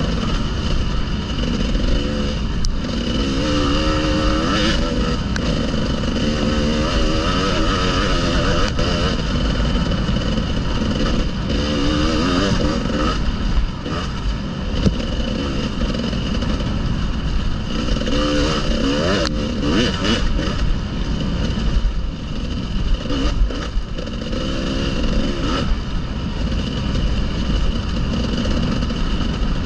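Enduro motorcycle engine running under changing throttle, its pitch rising and falling again and again, over a steady low rumble. A few sharp knocks come about two-thirds of the way through.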